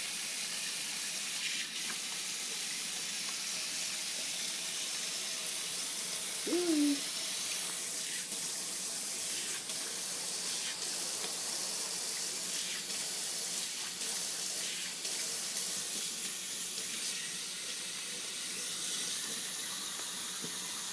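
Water running steadily from a kitchen tap into a stainless steel sink, with one short meow from a wet Persian cat about six and a half seconds in, rising then falling in pitch.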